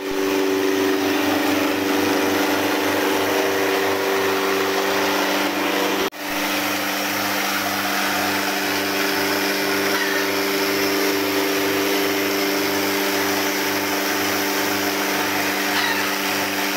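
Small electric rice huller running at full speed while dehusking paddy: a steady motor hum and hiss with a low pulsing beat a couple of times a second. The sound cuts out abruptly for a moment about six seconds in.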